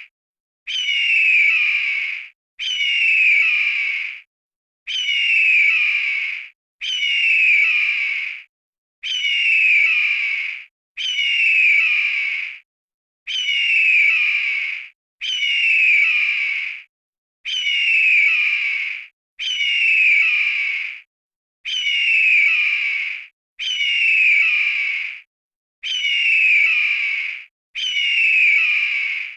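Eagle scream sound effect: one harsh, falling screech of about a second and a half, repeated identically about fourteen times, roughly every two seconds, with silence between.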